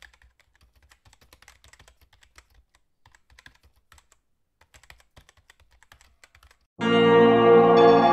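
Faint, rapid, irregular computer keyboard typing clicks for about seven seconds. Near the end, loud music with sustained tones starts abruptly.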